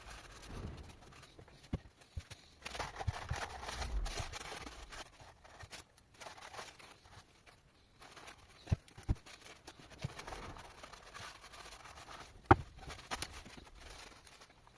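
Workshop handling noise while a gearbox is being taken apart: scattered sharp knocks and clinks of parts and tools, with a couple of longer stretches of rubbing or scraping.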